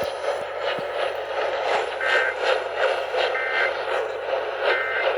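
Three short bursts of Emergency Alert System SAME data tones, the two-tone digital warble of an EAS test, about a second and a half apart over heavy hiss from the broadcast.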